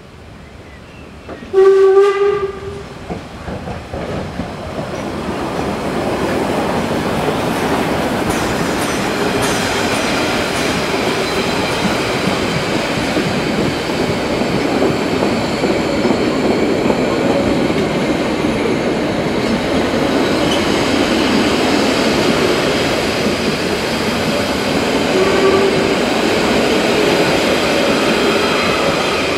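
Narrow-gauge 2-10-2T steam tank locomotive giving a short, loud whistle blast about two seconds in, then running past with its train. The coaches' wheels rumble and click over the rail joints, and a second, fainter short whistle sounds near the end.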